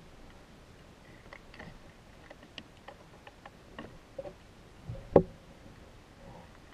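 Scattered small clicks and ticks heard underwater through a submerged camera, irregular rather than rhythmic, with one sharp knock about five seconds in that stands out above the rest.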